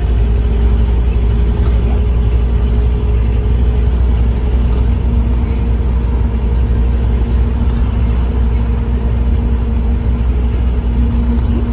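Scania K230UB bus's diesel engine and ZF automatic gearbox heard from inside the saloon while under way: a steady low rumble with a gearbox whine. The whine fades about a third of the way in, then returns at a lower pitch and grows louder near the end.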